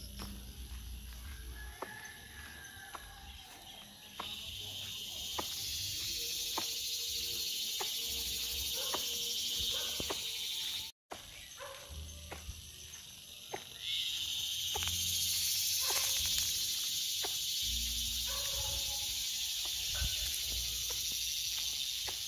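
A steady, high insect chorus that sets in sharply about four seconds in, cuts out for a moment near the middle and sets in again, over regular footsteps on a dirt path.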